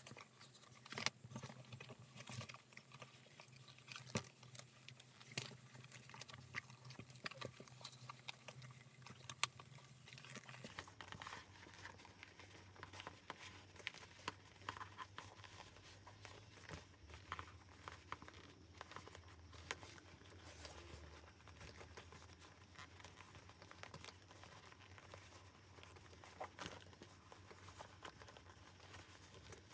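Faint handling noise of a leather sling bag: scattered clicks, taps and rustles as the leather is squeezed and turned over and its metal zipper is handled.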